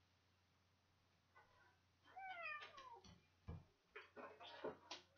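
A house cat meowing: a short faint meow about a second and a half in, then a longer meow falling in pitch. A few low thumps and clicks follow.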